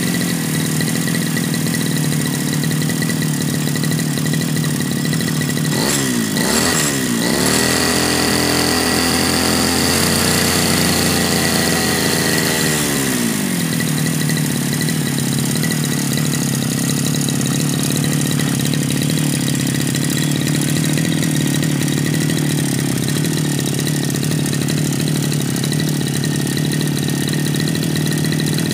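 Backpack brush cutter engine idling steadily, blipped twice about six seconds in, then held at high revs with a whine for about five seconds before dropping back to a steady idle. The engine is being test-run after a fix for stalling, and it keeps running at idle.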